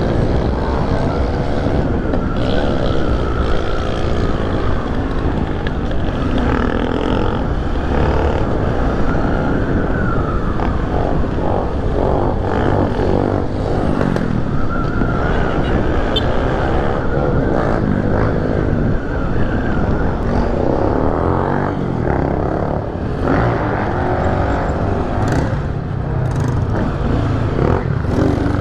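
A Honda XRE300's single-cylinder four-stroke engine runs at low road speed, its pitch repeatedly rising and falling with the throttle. Other motorcycles' engines run close by.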